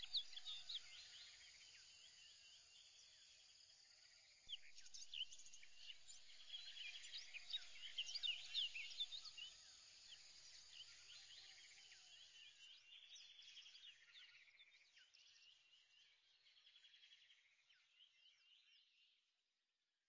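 Faint outdoor ambience of many small birds chirping over a light steady hiss. It is busiest for a few seconds about a quarter of the way in, then thins out and stops just before the end.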